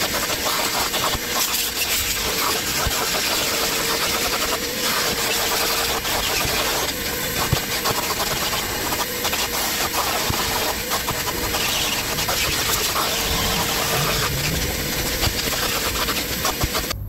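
Vacuum cleaner running as its wand is drawn over car floor carpet, picking up dirt loosened by an air tool: a steady rushing hum with scattered small crackles.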